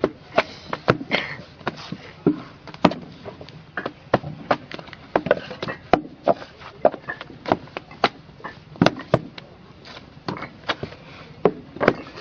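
Roofers driving roofing nails into a roof: a rapid, irregular run of sharp knocks, about two or three a second.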